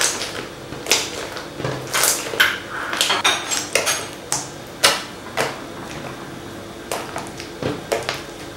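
Hands squeezing, folding and pressing a soft, glossy glue slime made fluffy with foam hair conditioner, giving irregular sharp sticky pops and squelches, several a second at times.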